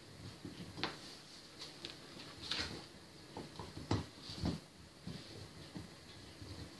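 Two Bernese mountain dog puppies chewing and tugging at a cloth on a tiled floor: scattered light clicks and soft knocks at uneven intervals, a little louder about two and a half and four seconds in.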